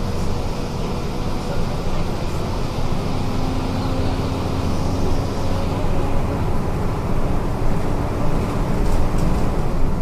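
The 270 hp MWM 7B270 Euro 5 diesel engine of a Volvo B270F bus running steadily, its note rising slightly about three seconds in.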